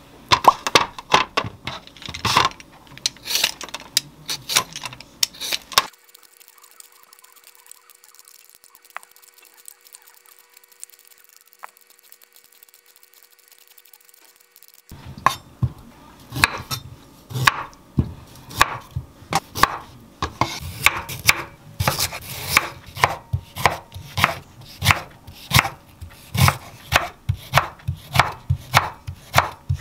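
A chef's knife cutting raw, hard sweet potato into matchsticks on a wooden cutting board, in steady sharp strokes about twice a second from about halfway on. Before that, a few seconds of quick clicks and scrapes of sweet potatoes being handled and peeled, then a quiet stretch.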